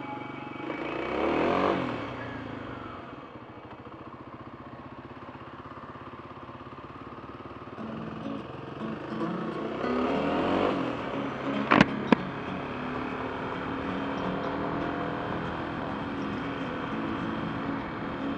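A vehicle on the road: steady engine and road noise, with vehicle engine sound swelling and fading twice, about a second in and again about ten seconds in. Two sharp clicks come close together about twelve seconds in.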